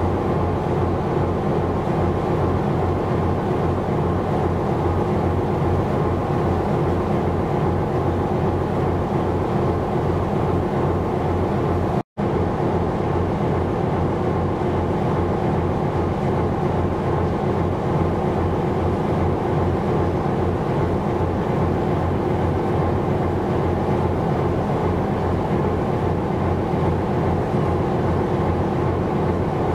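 Steady drone of a ship's engine with a constant deep hum, unchanging throughout, breaking off for an instant about twelve seconds in.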